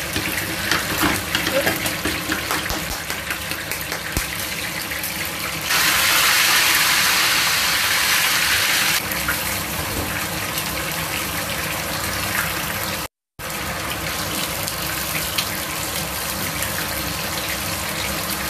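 Whole fish frying in hot oil in a pan, a steady sizzle that grows louder and brighter for about three seconds in the middle. The sound cuts out briefly about two-thirds of the way through.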